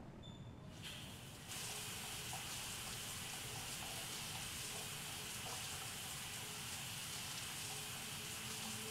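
Shower running: a steady hiss of spray that comes in about a second in and grows fuller half a second later.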